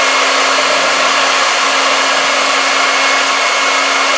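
An electric motor, such as a power tool's, running steadily at full speed with a high whine over a lower hum.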